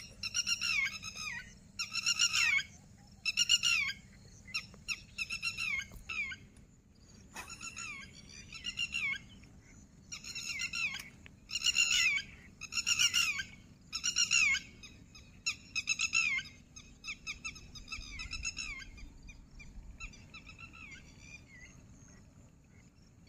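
A bird calling over and over in short bouts of quick, falling notes, about one bout a second, growing fainter near the end.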